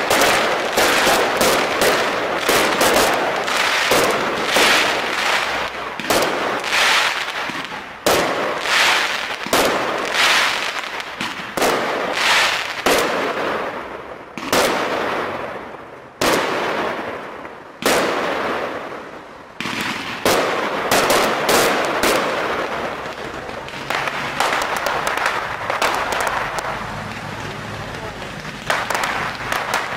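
Fireworks display: a rapid series of shell bursts, each sharp bang trailing off in echo. In the second half the bursts run together into dense, near-continuous crackling.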